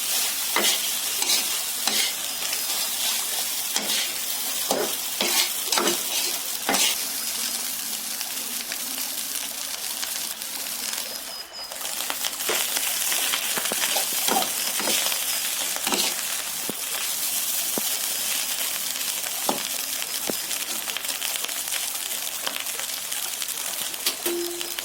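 Fried rice being stir-fried in a pan: a steady sizzle, with the spatula scraping and knocking against the pan again and again.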